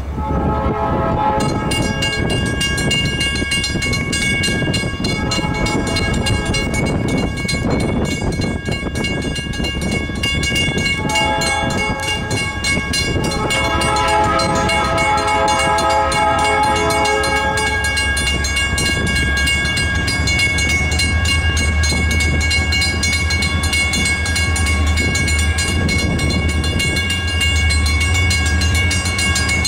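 Diesel locomotive air horn sounding four long blasts for a grade crossing, over a steady fast ringing. Heavy wind on the microphone adds a low rumble, stronger later on.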